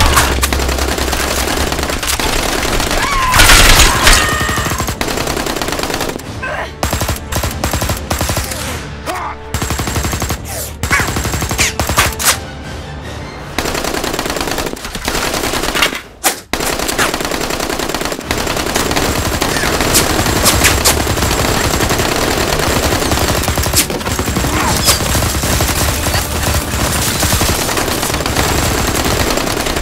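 Continuous rapid machine-gun fire sound effects mixed with music, with a brief break about sixteen seconds in.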